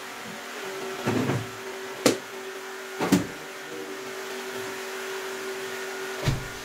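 Steady machine hum with four separate knocks or clatters, the sharpest a short click about two seconds in.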